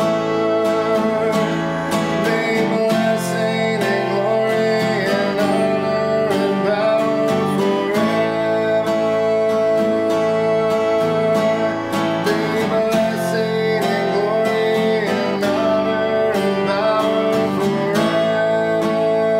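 A man singing a slow worship song while strumming chords on a steel-string acoustic guitar.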